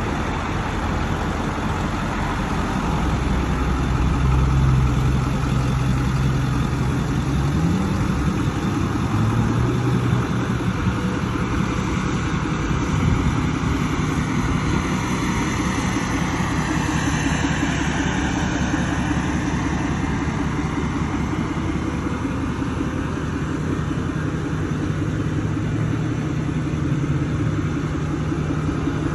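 An engine running steadily, its low hum stepping up in pitch about eight seconds in.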